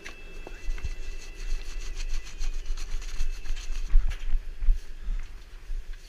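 Snowboard-boot footsteps crunching and scraping on packed snow, mixed with low thumps and rubbing from the body-worn camera as it is carried.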